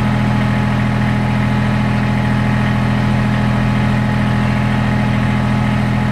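Kubota BX23S compact tractor's three-cylinder diesel engine idling steadily.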